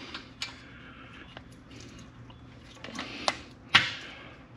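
A wrench on the steel oil drain plug of a Honda GX160 engine, working a tight plug loose: a few sharp metal clicks and knocks, the loudest near the end, over a faint low hum.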